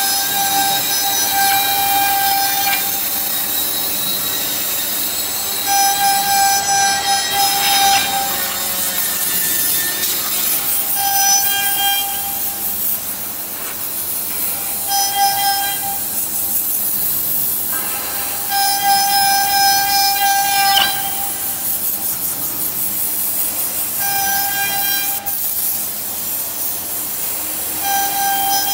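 A Ginchoor 1325 CNC router carving a wooden board: a steady high hiss from the spindle cutting, with a whining tone that comes and goes every few seconds as the cutting head moves along its path.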